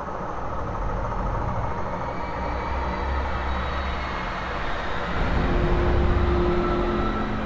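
Titanic-style ship breakup sound effect: a deep, continuous rumble with long, drawn-out tones drawn across it. It grows louder about five seconds in.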